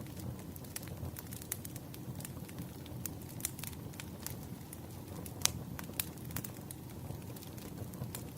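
Burning firewood crackling: a soft steady rumble of flames with irregular sharp pops and snaps, the loudest about five and a half seconds in.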